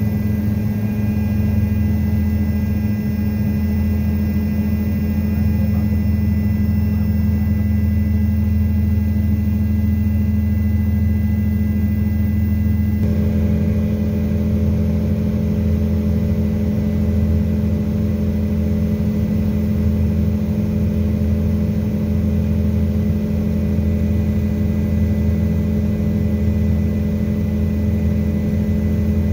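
Helicopter heard from inside the cabin: the turbine engine and rotor make a loud, steady drone with a thin whine above it. The whine's pitch shifts abruptly partway through, as the view changes from the helipad to flight over the valley.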